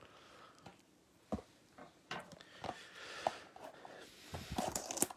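Faint taps and clicks of trading cards and packaging being handled on a wooden table, then a quick run of scissor snips and plastic rustle near the end as a card pack's wrapper is cut open.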